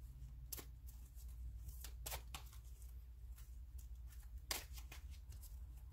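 Tarot cards being shuffled: a few short, soft card riffles and flicks, about half a second in, around two seconds, and a pair near four and a half seconds, over a faint steady low hum.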